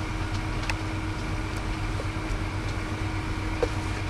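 Steady low hum and hiss of running radio test equipment, with a few faint clicks while the transmit power control is turned all the way down.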